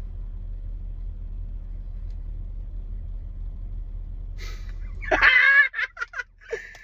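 Steady low rumble of road vehicles that stops suddenly about five seconds in, followed by a short loud vocal exclamation and a few light clicks.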